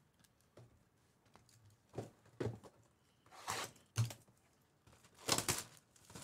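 Cardboard trading-card boxes being handled on a table: several short sliding scrapes and rustles, with a soft thump about four seconds in.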